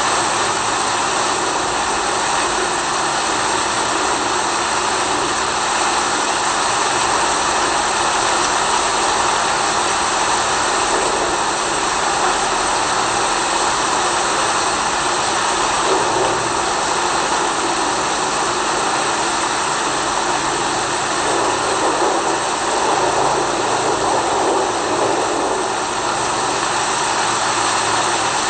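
Steady rain, a dense even hiss that never lets up, with a faint steady hum beneath it.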